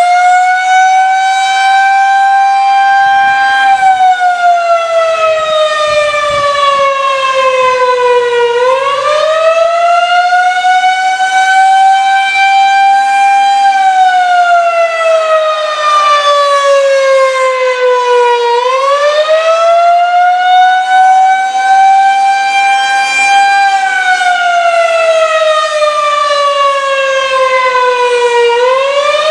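Federal Signal 2001-130 rotating electromechanical warning siren sounding its Attack signal: a slow wail whose pitch rises over about two seconds, holds, then falls over about five seconds, the cycle repeating about every ten seconds, three times.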